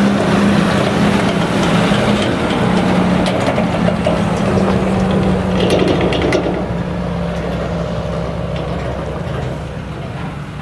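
Tractor pulling a Brantner Power-Tube trailer driving close past, its engine running with a steady hum. Rattles and clanks from the rig come in the middle, and the sound fades in the second half as it moves away.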